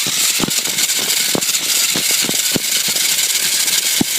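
Small RC truck driving over rough ground, heard from a phone riding on it: a steady high hiss of motor and tyres, with irregular knocks and rattles from bumps about twice a second.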